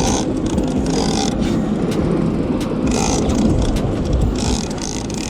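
Fishing reel being cranked in against a hooked yellowfin tuna, its gears making a rough, uneven whirring in short spells, over the steady hum of the boat's engine.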